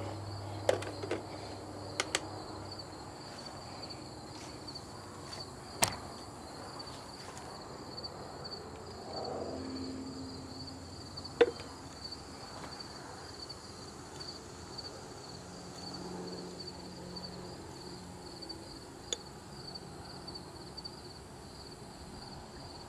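Crickets chirring steadily in the background, with a few sharp clicks and light knocks scattered through as the paddle and kitchen scale are handled.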